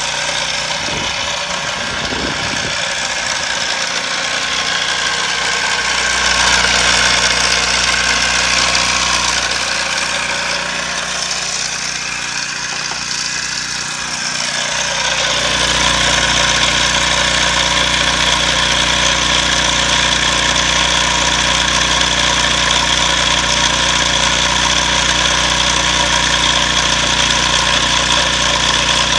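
Small propane-fuelled engine fitted with a GEET fuel processor, idling steadily. It grows louder and fuller about halfway through.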